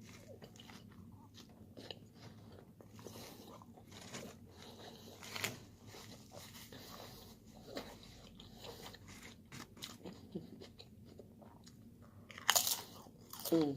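Close-up chewing and crunching of food in the mouth, with many small clicks and a few louder crunches about five seconds in and near the end.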